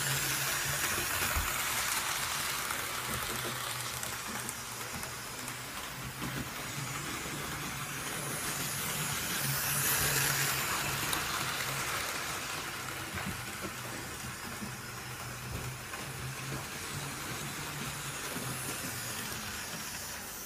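Model railway locomotive running round the track: a steady hiss of its electric motor and wheels on the rails with a faint low hum, growing louder as it passes close about ten seconds in and fading near the end.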